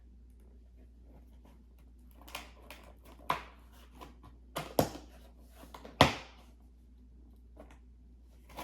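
Plastic clicks and knocks from a Lego model being handled: a run of sharp taps over a few seconds, the loudest two about a second apart, then a few faint ticks.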